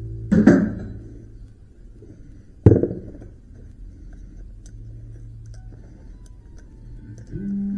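Two sharp knocks about two seconds apart, with light ticking between, from stripping the copper windings out of a cut electric motor stator.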